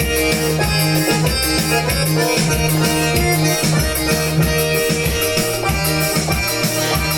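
Instrumental forró music: an accordion-like melody over a repeating bass line and a steady drum beat.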